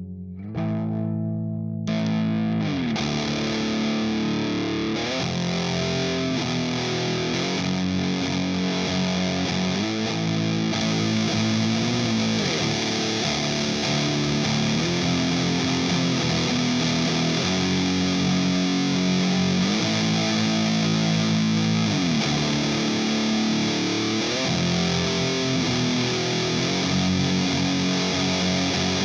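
Electric guitar in B standard tuning played through a Minotaur Sonic Terrors Fuzz and Burn fuzz and boost pedal into a Matamp GT120 amp: slow, heavily fuzzed doom metal riffs of long sustained chords with sliding notes. A quieter note rings first, then the full fuzz chords come in about two seconds in and play on without a break, turning brighter about ten seconds in.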